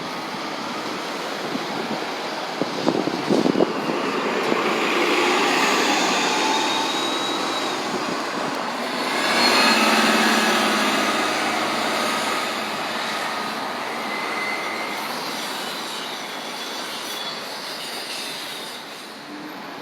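A city transit bus running past at close range, with high-pitched brake squeals; it is loudest about halfway through, then fades.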